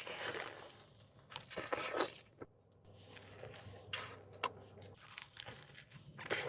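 Close-miked eating sounds: several separate crunchy bites and chewing, with some tearing or crinkling.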